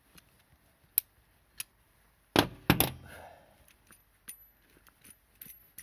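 A steel brake-line flaring tool being undone and handled. A few light metal clicks, then two loud metallic knocks close together about two and a half seconds in, then more small clinks.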